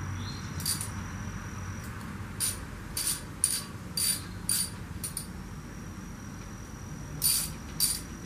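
Ratchet wrench clicking in short strokes, about two a second with a pause of about two seconds in the middle, as the oil drain plug of a pit bike engine is snugged down.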